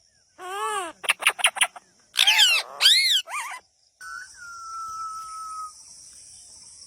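Ringneck parrot calling: a run of arched squawks that rise and fall in pitch, with a quick rattling trill about a second in. From about four seconds in there is a steady high tone over a faint hiss.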